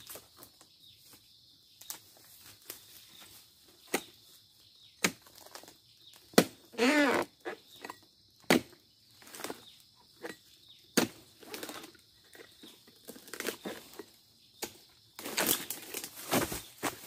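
Sharp, irregular knocks of a long-poled chisel blade (dodos) chopping into the frond bases and bunch stalk of a low oil palm, with a short wavering squeak about seven seconds in. Near the end comes a burst of rustling as the cut fresh fruit bunch breaks loose and comes down through the fronds.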